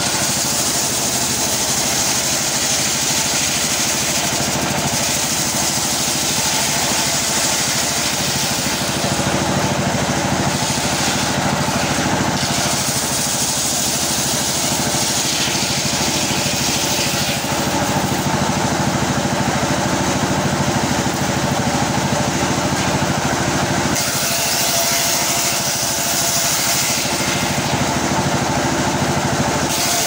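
Engine-driven circular sawmill running and its blade ripping a gempol log into boards, over the steady drone of the engine. A higher hiss from the cut swells and fades several times.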